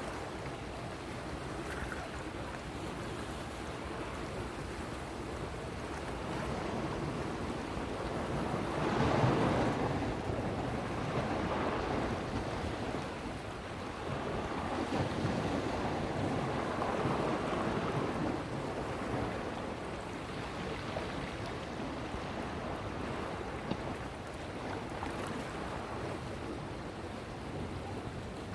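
Waves washing in surges over a steady wash of water, with wind noise on the microphone; the biggest surge comes about nine seconds in.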